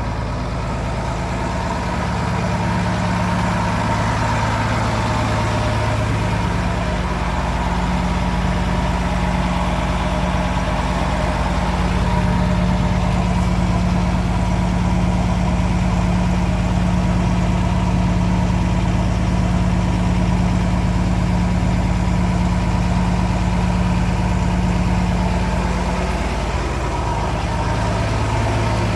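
Demag DF-140 C asphalt paver's diesel engine running steadily, its pitch shifting slightly a few times, with a steady whine above it.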